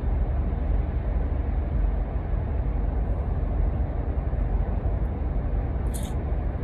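A steady low rumble, like vehicle road noise, with one brief high click near the end.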